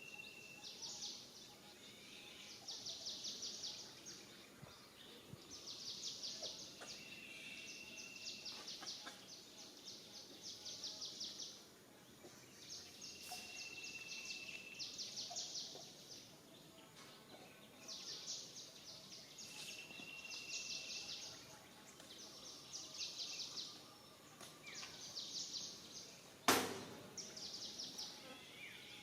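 Outdoor wildlife ambience: high, rapidly pulsing buzzing calls in repeated bursts of a second or two, a short steady whistled note about every six or seven seconds, and one sharp click near the end.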